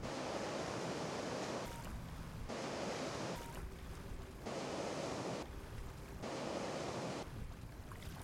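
Sea surf washing on a sandy beach, an even rushing noise that gets louder and softer in sudden steps about every second.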